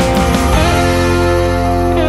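Background music led by guitar, with held notes and chords.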